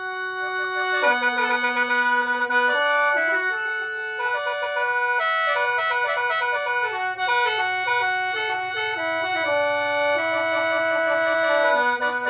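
Lao khaen, a bamboo free-reed mouth organ, played solo: several reeds sound at once, with a steady drone note held under the melody. The melody moves in quicker runs through the middle and settles on longer held chords near the end.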